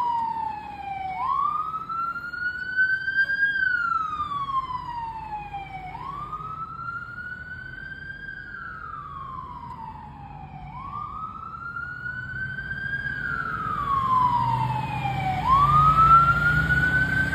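Fire engine siren on a slow wail, the pitch rising and falling about every five seconds, four times over. A low rumble grows louder near the end.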